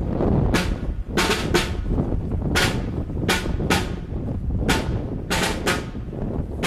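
Procession snare drums beating a slow march: sharp, crisp strokes, several in pairs about a third of a second apart, over a steady low rumble.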